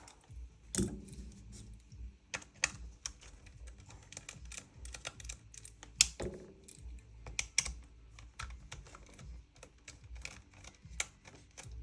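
Irregular small clicks and taps of a hex key turning out screws and handling the metal and plastic parts of an airsoft gun's upper receiver, with one sharper click about six seconds in.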